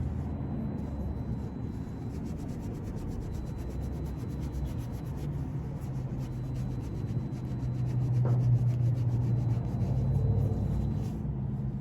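Bicycle disc-brake pads being rubbed clean with a cloth soaked in alcohol, to strip off the grease and oil that make them squeal, over a steady low hum that grows louder about two-thirds of the way through.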